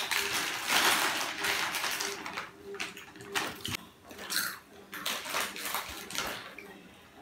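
Foil crisp packets crinkling and rustling in irregular bursts as they are handled and torn open, loudest in the first couple of seconds.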